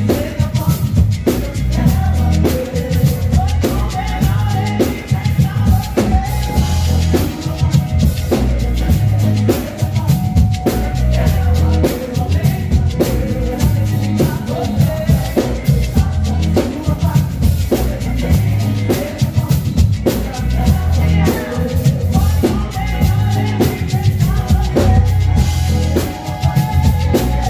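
Band music driven by a drum kit keeping a steady beat, with bass drum and snare, under a pulsing bass line and held melodic notes.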